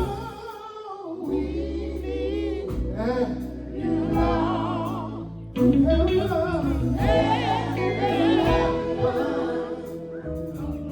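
Gospel choir singing a slow song with vibrato, over sustained bass notes from the band.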